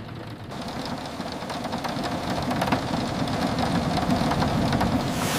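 Heavy rain pattering over the low rumble of a vehicle driving on the road, swelling in level from about half a second in.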